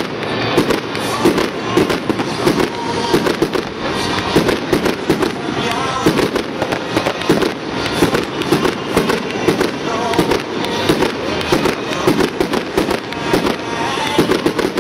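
Aerial firework shells bursting in a dense, continuous barrage of bangs, several a second with no let-up.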